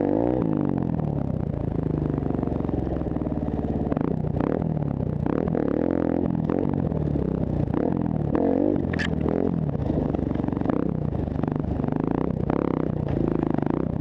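Honda CRF150F dirt bike's single-cylinder four-stroke engine revving up and down with the throttle while riding over rough brushy ground, with repeated clatters and scrapes.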